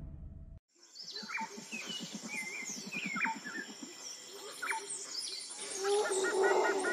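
Music with drums cuts off just under a second in, followed by natural ambience of several birds calling: short chirps and falling whistles over a steady high whine, with a fast run of repeated chirps near the end.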